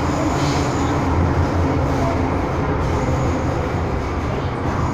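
Steady running rumble of an MTR M-Train, heard from inside a passenger car as it travels between stations.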